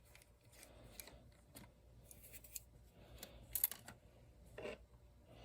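Scattered light clicks and rustling from small parts being handled by hand, with the sharpest clicks about three and a half seconds in.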